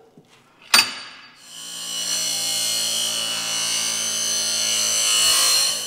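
Bench grinder running and grinding the steel tip of an old screwdriver, shaping it into a rounded point for a homemade lock-strip tool. The grinding starts about a second and a half in, over the motor's steady hum, after a single sharp knock just under a second in.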